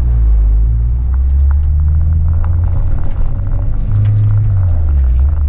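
Acura RSX's K20 four-cylinder engine running under way, a steady low drone with road rumble whose pitch shifts up and down a few times as engine speed changes.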